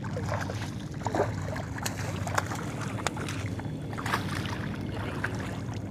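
A boat motor runs steadily with a low hum, while short splashes of water sound here and there.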